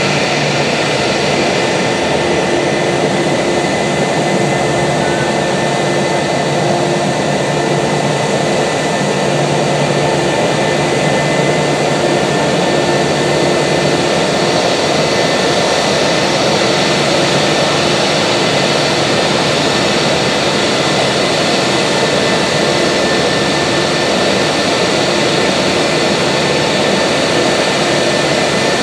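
Airbus A320's IAE V2500 turbofan engines running steadily at low thrust as the airliner taxis close by: an even jet rush with a few steady whining tones over it.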